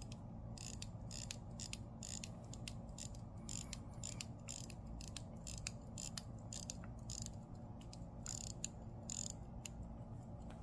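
Vintage Elgin pocket watch being wound by hand at the crown: the winding ratchet gives quick, fine clicks in uneven runs, twist after twist, as the mainspring is wound. The clicks thin out near the end.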